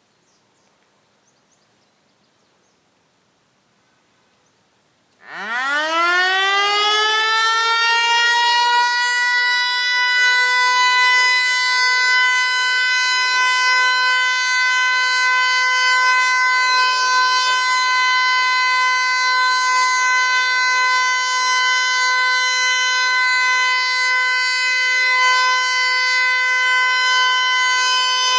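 About five seconds of near silence, then a Federal Signal Eclipse 8 electronic outdoor warning siren, running on batteries alone, starts its steady short-alert test signal: a quick rising sweep that settles into a loud, steady chord of tones and holds.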